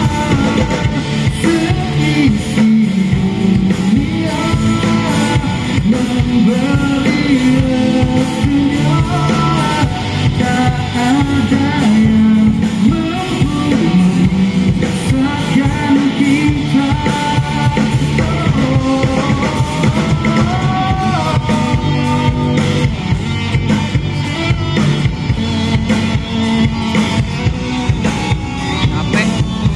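Live rock band playing through a PA: electric guitars, bass and drum kit, with a singer carrying the melody.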